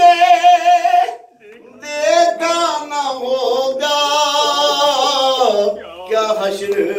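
A man singing an unaccompanied noha, a mourning lament, with long held notes that waver in pitch. He breaks off briefly a little over a second in, then sings on.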